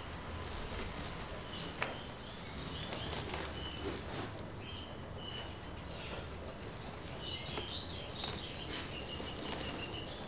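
Small birds chirping in short high notes, with a longer run of warbling near the end, over a steady low background rumble and scattered rustling clicks, one sharper click about two seconds in.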